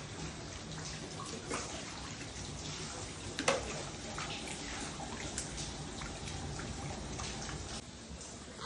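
Rainwater dripping and trickling over a steady hiss, with many small scattered drip ticks and one louder tick about three and a half seconds in.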